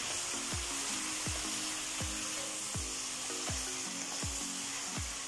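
Raw mutton pieces sizzling in hot oil in a karahi while being stirred with a wooden spoon: a steady frying hiss. Background music with a steady beat of about two and a half thumps a second and held low notes plays over it.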